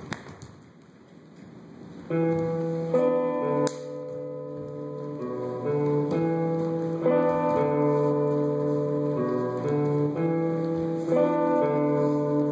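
Acoustic guitar music: plucked and strummed chords that start about two seconds in after a brief lull.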